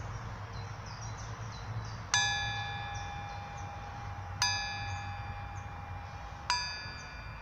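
A bell struck three times, about two seconds apart, each stroke ringing out and slowly fading, the first the loudest. Faint birdsong chirps underneath.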